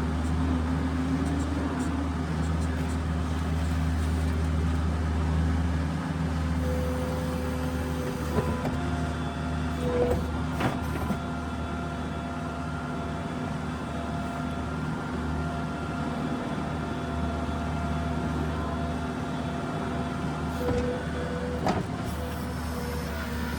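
New Holland skid steer's diesel engine running steadily, with a few sharp knocks now and then.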